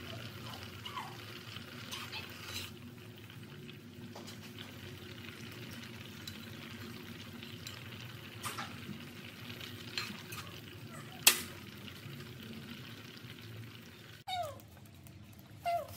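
Thick curry simmering and bubbling in a pot on the stove, with a metal ladle stirring and knocking against the pot, one sharp clink about eleven seconds in. Near the end there are two short falling squeaks.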